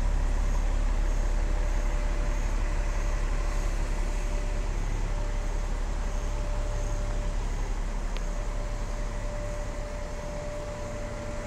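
Deep engine rumble of a double-decker bus close by, slowly fading, with a thin steady hum running through it.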